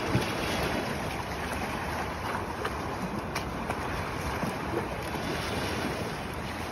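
Steady rushing noise of sea and wind on the microphone, with a few faint clicks.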